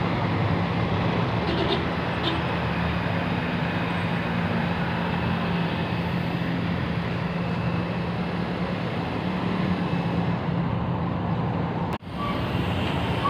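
A motor running steadily with a low hum under a wash of noise, with a brief dropout near the end.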